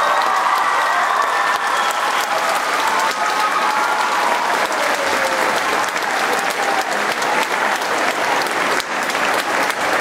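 Audience applauding at the end of a sung performance, with whooping cheers over the clapping in the first few seconds; the clapping eases slightly in the second half.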